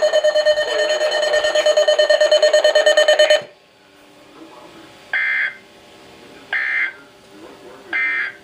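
Emergency Alert System broadcast: a steady, rapidly pulsing alarm tone cuts off suddenly about three and a half seconds in, then three short screechy data bursts follow about a second and a half apart, the EAS end-of-message code that closes the alert.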